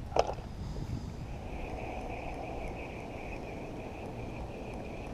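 A Shimano Rarenium 2500 spinning reel cranked steadily to retrieve a surface lure, giving a steady, slightly wavering whine. Two sharp clicks come at the very start.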